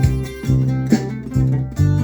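Acoustic guitar being strummed, a chord struck about twice a second and left ringing between strokes, changing chord near the end.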